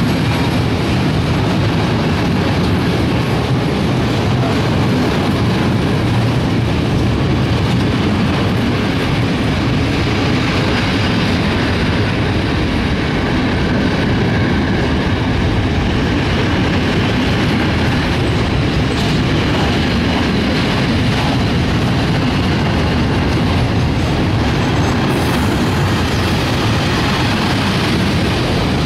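A freight train of covered hopper wagons rolling past on the adjacent track: a steady, loud noise of wheels on rail, with some clatter.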